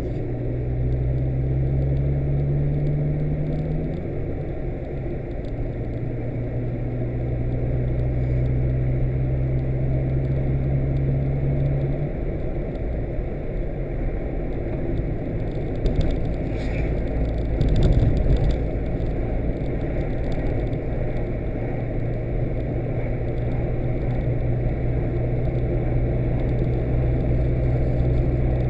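Car engine and road noise heard from inside the moving car. The engine note rises a little and steps down twice as the car changes speed or gear. A brief thump comes about two-thirds of the way through.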